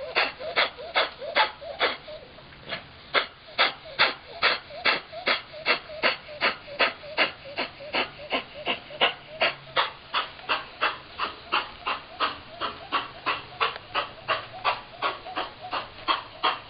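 Small Chihuahua–Miniature Pinscher mix with kennel cough breathing fast and raspy, short noisy breaths about two and a half a second with a brief pause about two seconds in.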